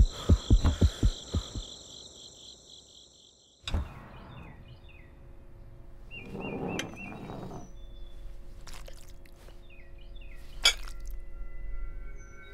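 A run of low, evenly spaced thumps fades away over the first two seconds, then silence. After that, birds chirp faintly, with a soft clatter and one sharp clink of tableware set on a table.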